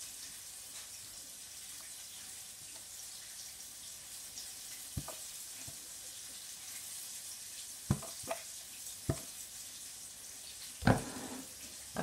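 Steady faint sizzle of fish frying in hot oil in a wok. A few short clicks and knocks from the sauce bottles and bowl cut through it; the loudest comes near the end.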